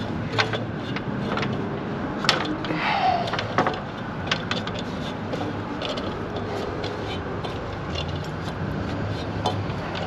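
Someone climbing an extension ladder: irregular knocks and clanks of shoes and hands on its metal rungs, over a steady background hiss.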